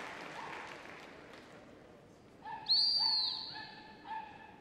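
A long, shrill blast on a gundog whistle about two and a half seconds in, with shorter, lower whistle notes around it. It is the stop whistle, which halts a running Labrador and sits it down. Under it the hall's background noise dies away.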